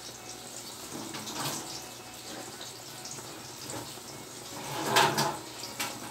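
Pork and chicken adobo simmering in a wok on a gas burner, bubbling with small scattered pops as it braises to tenderise the meat. A brief louder rush of sound rises and fades about five seconds in.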